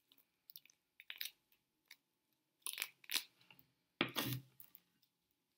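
A spoon spreading peanut butter into the scales of a pine cone: a run of short, irregular scrapes and crackles, the loudest about four seconds in.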